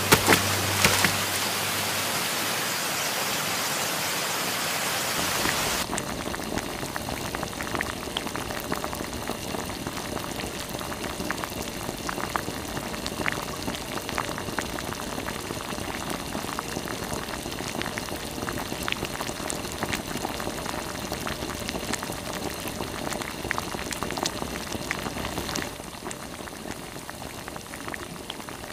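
Rushing water of a small river cascade over rocks, cut off about six seconds in. Then a pot boiling over a wood fire: a steady bubbling and crackling hiss with many scattered small clicks.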